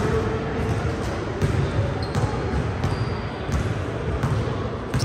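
Basketball dribbling on a court: repeated irregular thumps over a steady background din.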